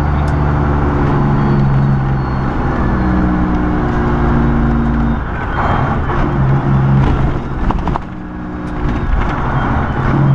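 Semi truck's diesel engine droning steadily under way, with road and wind noise. There is a short rush of noise about halfway through and a few light clicks after it.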